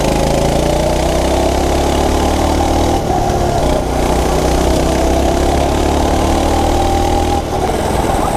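Coleman mini bike's single-cylinder four-stroke engine running steadily under throttle while riding, easing off briefly about three seconds in and again near the end.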